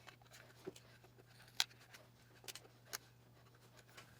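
A handful of faint, sharp metallic clicks over a low steady hum: brad nails being pulled out of wood with a hand tool.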